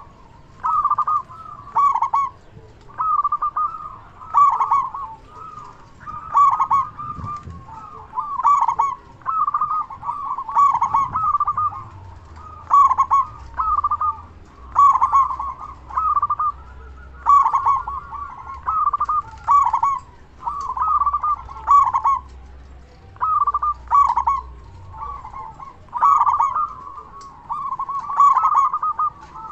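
Zebra dove (local perkutut) cooing, repeating its rolling phrase about once every second and a half.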